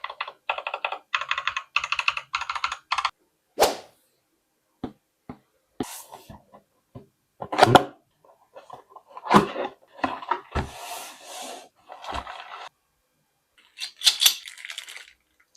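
Keys of an AJAZZ AK871 wireless mechanical keyboard being typed on: a fast run of key clicks for about the first three seconds, then scattered single key presses, heavier knocks and brief scuffing.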